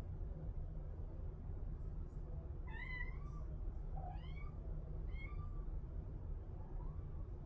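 Kitten meowing, four short high-pitched meows starting about three seconds in, the last one faint, over a steady low background rumble.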